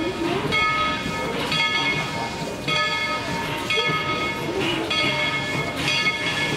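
Locomotive bell ringing steadily, one ringing stroke about every second.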